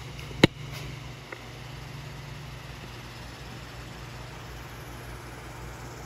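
A steady low hum, with one sharp, loud click about half a second in and a faint second click just over a second in.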